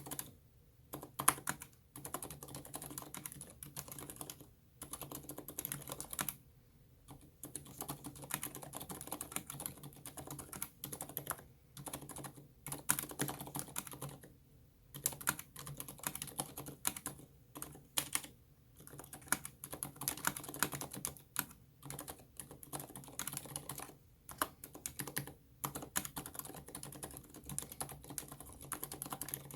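Typing on a mechanical keyboard with Aliaz 60g silent tactile switches and SA-profile ABS keycaps: quick runs of keystrokes broken by brief pauses every few seconds.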